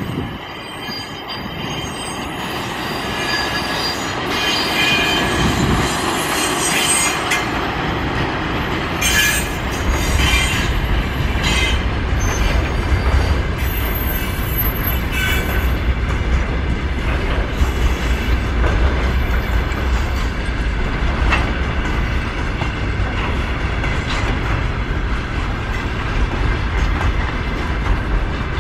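VL10K electric locomotive passing with a long container freight train, the wagons rolling by on the rails in a continuous loud rumble. It builds over the first few seconds, thin high-pitched wheel squeals ride on top through the first half, and a deep steady rumble settles in from about a third of the way through.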